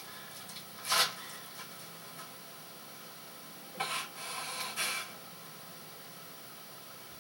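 A sick man coughing: one harsh cough about a second in, then a short run of two or three coughs about four seconds in.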